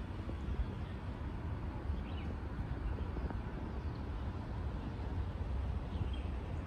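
Outdoor ambience: a steady low rumble with a few faint bird chirps, about two seconds in and again near the end.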